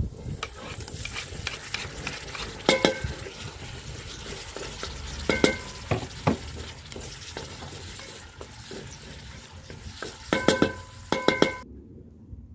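Food sizzling in a metal cauldron over a wood fire as diced tomatoes go in and are stirred with a wooden spoon, the spoon knocking against the pot several times with a ringing clang. The sizzling cuts off abruptly near the end.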